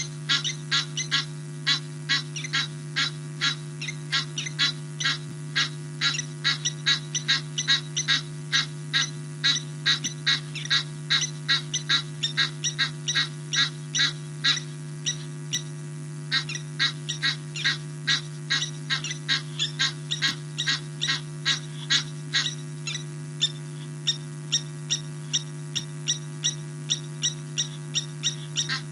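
Lapwings and geese alarm-calling, disturbed by a civet: a rapid, unbroken series of short, sharp calls at about three a second, with a brief pause about halfway. A steady electrical hum from the camera's faulty audio runs underneath.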